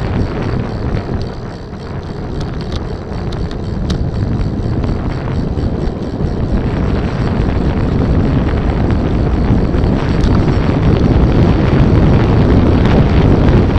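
Wind rushing over the microphone of a camera on a moving bicycle, with a low road rumble. It dips about two seconds in, then grows steadily louder as the ride picks up, with a few light clicks in the first half.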